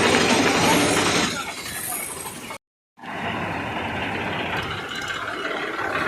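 Heavy diesel machinery engine running steadily, cut to a moment of total silence about two and a half seconds in before the engine sound resumes.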